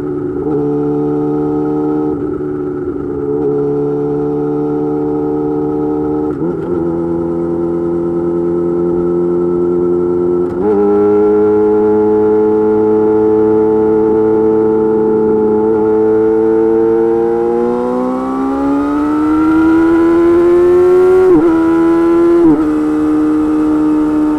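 Yamaha YZF-R6's inline-four engine through an M4 GP slip-on exhaust with a custom mid pipe, cruising at steady revs with a few brief gear changes. In the second half the revs climb steadily under throttle, then drop sharply with quick shifts near the end.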